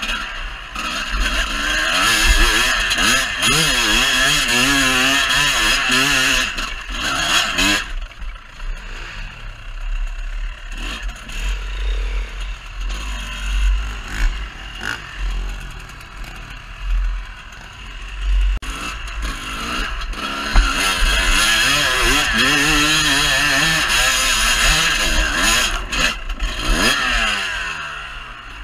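Dirt bike engine revving up and down as the bike is ridden hard, heard from a camera on the bike with wind rumbling on the microphone. It eases off through the middle, picks up again in a second run of revs, and winds down in a falling sweep near the end.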